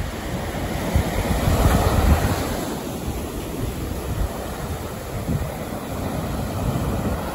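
North Sea surf breaking and washing up the sand, with gusty wind buffeting the microphone in a heavy, uneven rumble. The surge is loudest about two seconds in, then eases.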